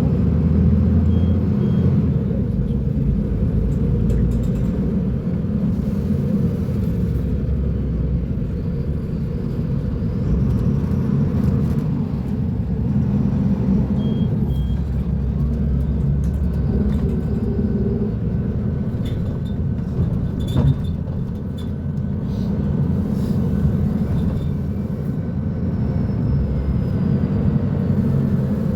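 Mercedes-Benz O500U city bus with Voith automatic gearbox, its diesel engine running as a steady low drone that swells and eases several times. A sharp click is heard about two-thirds of the way through.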